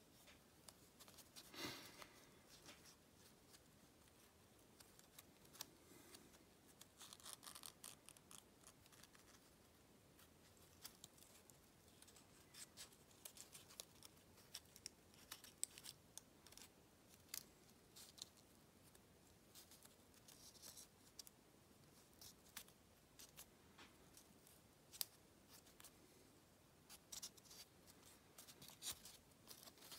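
A sheet of origami paper being folded and creased by hand: faint, irregular crinkles and crackles of paper, coming in clusters.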